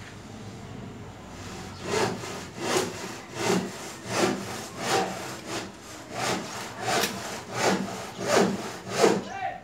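Steady rhythmic rasping strokes, about eleven in a row at roughly three every two seconds, starting about two seconds in.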